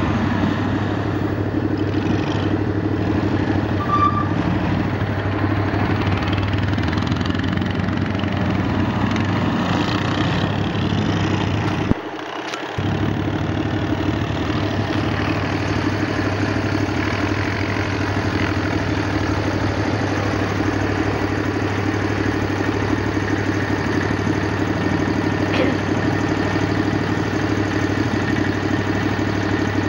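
Engines of a Max II six-wheel amphibious ATV and a four-wheel quad, driving off-road in a steady drone. The sound drops out briefly about twelve seconds in.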